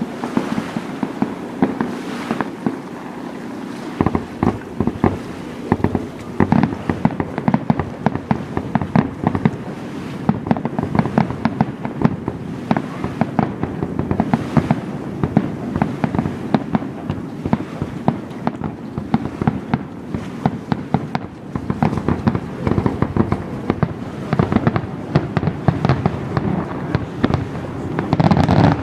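Fireworks going off in a rapid, continuous barrage of bangs and crackles. The reports become denser and louder about four seconds in.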